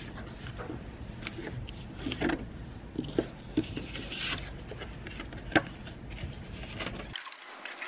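Sheets of paper and cards rustling and small handling clicks as they are taken down from an office cubicle partition held with magnets, with one sharper click a little after the middle.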